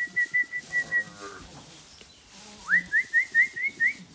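A person whistling quick runs of short high notes, about five a second, then after a pause a rising whistle followed by another run of short upward-flicking notes: a shepherd's whistle calling the ewes out of the shed.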